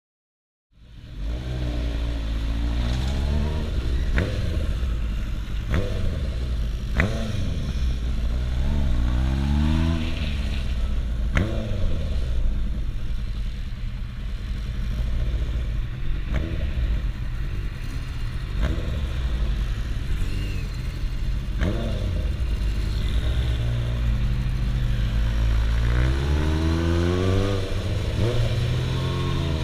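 Kawasaki Zephyr 750's air-cooled inline-four engine heard from the rider's seat, pulling through the gears with its pitch rising over and over every few seconds, over wind rush. The sound starts abruptly just after the start, and there are a few sharp clicks.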